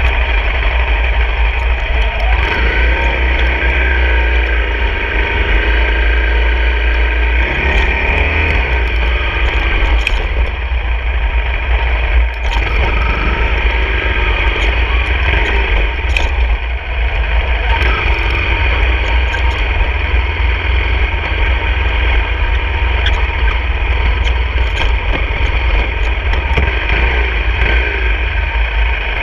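Honda CRF250 dirt bike's single-cylinder four-stroke engine running while riding a rough dirt track, its pitch rising and falling with the throttle. Scattered sharp knocks come from the bumps along the way.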